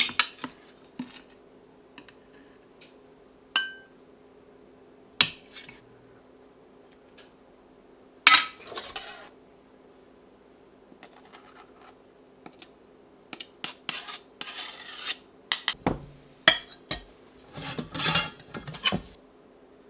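Dishes and cutlery clinking and knocking against each other as they are handled, in scattered single clinks and a busier clatter in the second half, over a faint steady low hum.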